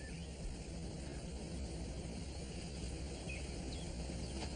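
Quiet outdoor background ambience: a steady low rumble with a couple of faint, short bird chirps.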